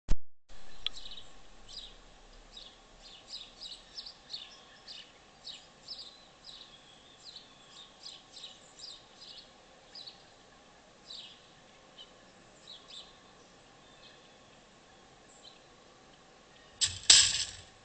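Small birds chirping again and again. Near the end comes a loud, sudden metal clatter in two quick hits: the door of a 48-inch Tru Catch wire cage trap slamming shut as a dog is caught inside.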